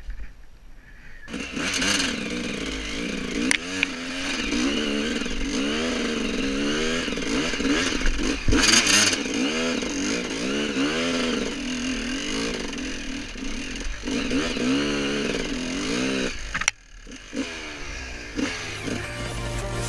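GasGas enduro motorcycle engine revving up and down over and over as the throttle is worked, heard from the rider's helmet. A few sharp knocks cut through, the loudest about halfway through.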